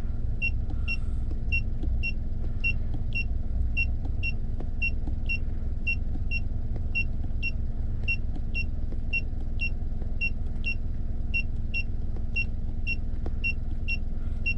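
Car engine idling, heard from inside the cabin as a steady low hum, with a short high electronic beep repeating evenly about twice a second.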